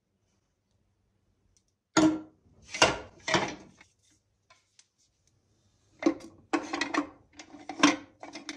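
Wooden spoons and spatulas knocking and clattering against a glass carafe as they are put into it: three sharp knocks about two seconds in, then a quicker run of clatters from about six seconds in.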